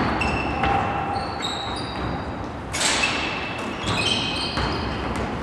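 Basketball game court sounds: sneakers squeaking repeatedly on the gym floor in short high chirps, with a sharp thump about three seconds in.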